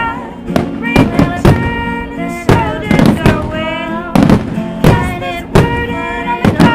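Music with a gliding pitched lead line, mixed with a run of sharp fireworks bangs about every half second.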